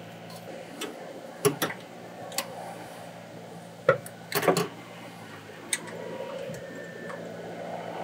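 Irregular sharp metallic clinks of a socket and extension knocking against the engine's metal parts, several single clicks with a louder cluster about four and a half seconds in.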